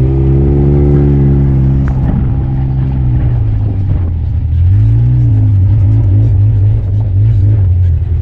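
Polaris RZR S 800 side-by-side's twin-cylinder engine running while driving, its pitch rising and falling with the throttle.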